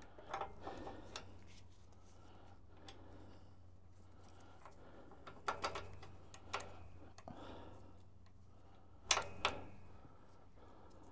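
Faint metallic clicks and knocks as the steel release finger and pins of a David Brown tractor clutch pressure plate are handled and fitted, with the loudest pair of knocks a little after nine seconds. A low steady hum runs underneath.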